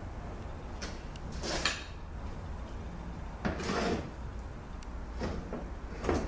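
Several short clunks and scrapes of metal transmission parts being handled on a workbench, over a low steady hum.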